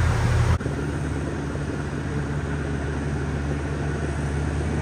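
Engines running at a steady speed. A louder low rumble changes abruptly about half a second in to a steadier, slightly quieter engine hum from a tow-behind brush chipper.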